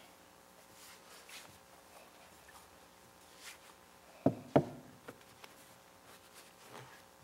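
Two sharp wooden knocks about a third of a second apart, a little past the middle, among faint clicks and rustles of handling in a quiet room.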